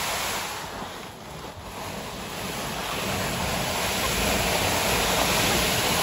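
Plastic sled sliding over thin snow and ice on pavement: a steady rushing scrape mixed with wind on the microphone, dipping about a second in and then growing louder.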